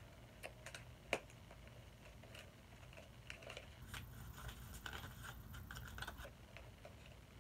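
Fingers picking and scraping at a small cosmetics box, a bronzer duo's packaging, while struggling to get it open: faint scratching and small clicks, with one sharper click about a second in and a busier stretch of rustling and scraping in the middle.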